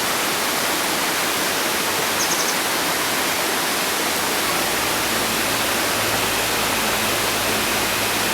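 Steady loud rushing hiss. About two seconds in there is one brief high call of four quick notes from a bird, and a low steady hum comes in about halfway.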